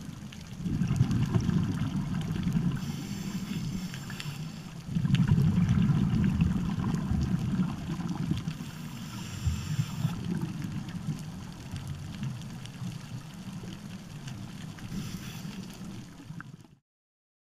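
A scuba diver's regulator breathing, heard underwater through a GoPro's waterproof housing. A short hiss on each inhale comes about every six seconds, and a muffled rumble of exhaled bubbles follows. The sound cuts off suddenly near the end.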